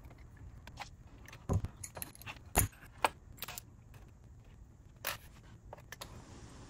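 Small metal SU H1 carburetor parts clicking and clinking against each other and the parts tray as the carburetor is taken apart by hand. The click is sharp and the clicks are scattered and irregular. Among them a small spring and a seal fly off the carburetor and land on the tray.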